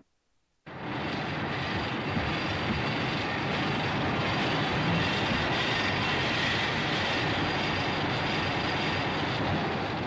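A sound effect from the 1954 Godzilla film: a steady rushing noise with no clear pitch, starting about half a second in and holding level for some nine seconds before beginning to fade at the end.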